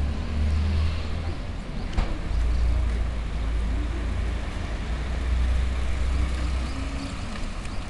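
A city bus engine idling with a low, steady rumble while a small car drives past. There is a sharp click about two seconds in.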